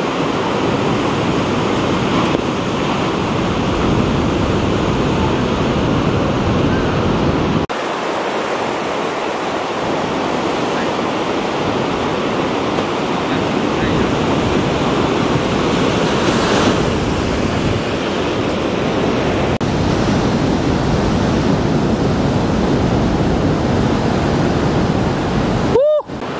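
Ocean surf: a steady rush of breaking waves and whitewater. It changes abruptly about 8 and 20 seconds in and drops out briefly near the end.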